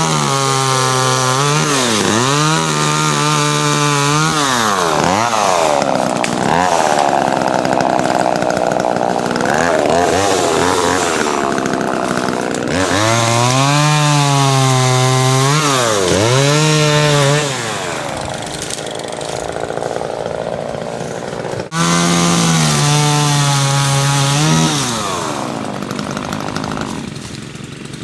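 Chainsaw cutting wood at high revs, its pitch dipping and recovering again and again as the chain bogs in the cut. About two-thirds through it eases off, revs hard once more for a couple of seconds, then drops back toward idle near the end.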